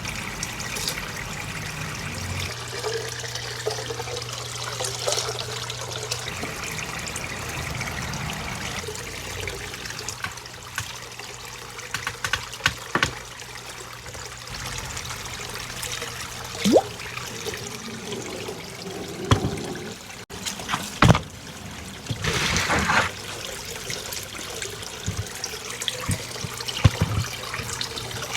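Water from a small pond waterfall box trickling and splashing steadily into an outdoor goldfish tank. A low steady hum joins about two seconds in, and a few short sharp clicks or knocks stand out.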